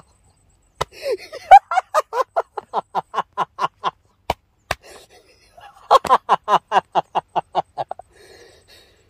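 A man laughing mockingly: rapid 'ha-ha-ha' pulses, about four a second, in two long bouts with a few sharp clicks between them.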